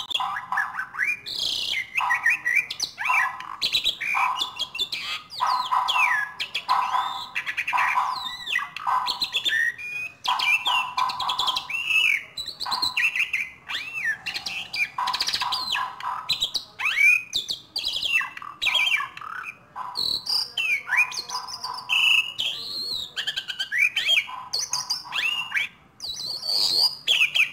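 Javan pied starling (jalak suren) singing a long, varied song of whistles, pitch glides and rapid chattering notes with hardly a pause: a bird still learning its song.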